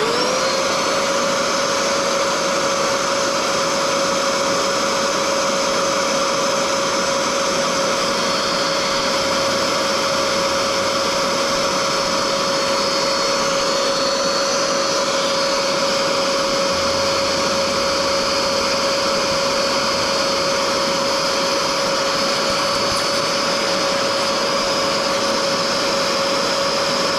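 Bissell Portable Pro carpet extractor's suction motor switching on, spinning up quickly and then running steadily with a high whine, during a spray test of a newly fitted hose and head.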